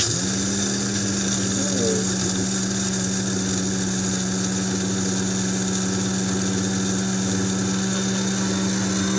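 Electric coffee grinder switching on and running steadily, grinding whole coffee beans to a fine, slightly powdery grind, with a constant motor hum.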